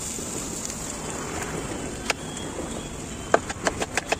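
Sliced onions and vegetables sizzling in a large wok, a steady hiss. A sharp clack about two seconds in, then near the end a quick run of clacks, about six a second.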